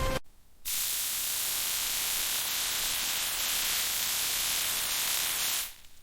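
A steady hiss, with no pitch or rhythm, that starts abruptly about half a second in and cuts off shortly before the end.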